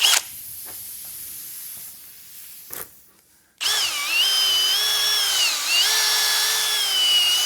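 Power drill reaming out the screw puncture in a tire tread to size the hole for a plug. A brief burst at the start, then about halfway in the drill runs steadily with a motor whine that dips in pitch for a moment as it loads up.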